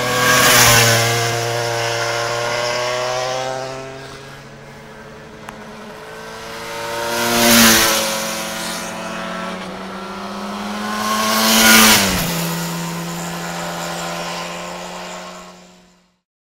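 250cc two-stroke sports motorcycles riding past one after another. There are three loud pass-bys: about a second in, near eight seconds and near twelve seconds. Each engine note drops in pitch as the bike goes by, and the sound fades out near the end.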